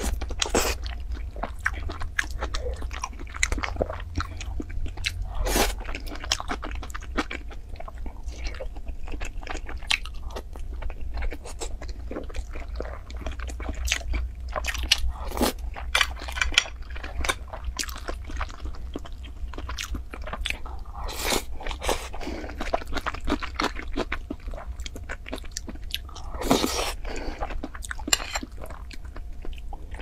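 Close-miked mouth sounds of a person eating: chewing and biting with many irregular clicks and crunches, over a steady low hum.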